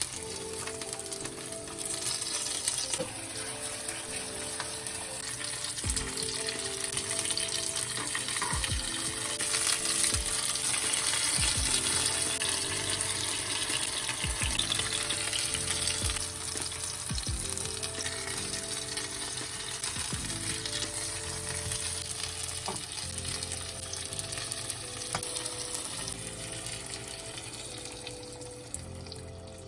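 Food sizzling in a hot frying pan. The hiss swells toward the middle and eases off near the end, with soft background music underneath.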